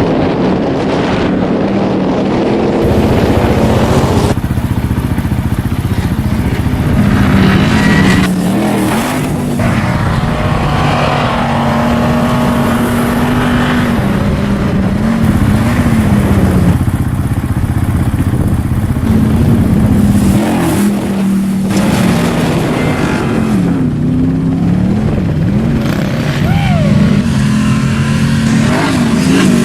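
Ford Raptor pickup's engine running hard off road, its revs rising and falling again and again.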